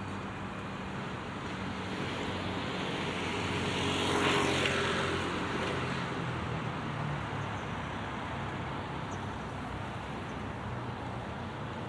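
A motor vehicle passing by on a city street over a steady background of distant traffic. Its engine hum and tyre noise swell to a peak about four seconds in, then fade away.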